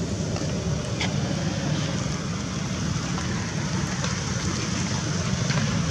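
Steady low outdoor rumble with a faint hiss over it and a few faint clicks.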